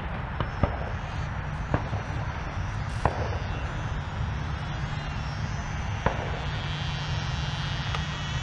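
Steady low wind rumble on the camera microphone, broken by a few scattered sharp clicks. In the second half the high whine of an 80mm electric ducted fan jet comes in faintly and grows.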